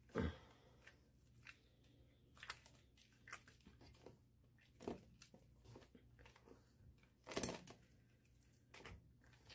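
Hands squeezing and swishing wet green-dyed gym chalk in a bowl of water: a series of short, separate wet squishes and sloshes, the loudest just after the start and again about three quarters of the way through.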